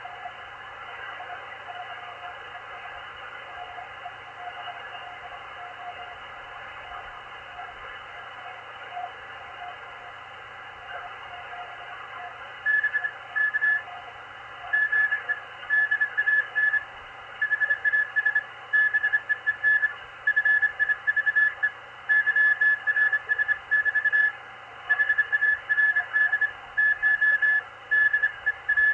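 Morse code on the 20-metre amateur band from a Machilite DSP SDR receiver: band hiss with a faint keyed tone at first, then about twelve seconds in a strong, higher-pitched Morse signal starts keying on and off in dots and dashes.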